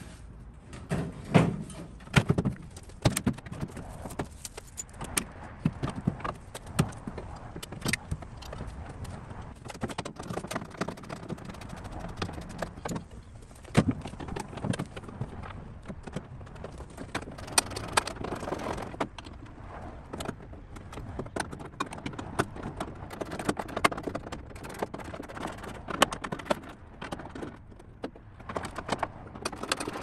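Hands working on wiring and a braided wire loom in a car's engine bay: irregular clicks, taps and knocks with rustling between them.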